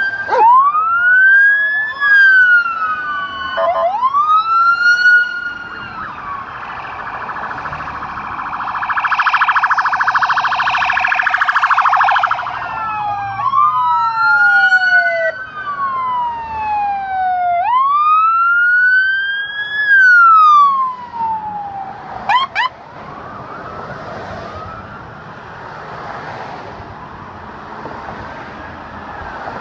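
Police car sirens wailing as patrol cars pass, several overlapping, rising and falling in pitch. A fast warble takes over for a few seconds in the middle, and a short quick chirp sounds about two-thirds of the way in. After that the sirens are fainter.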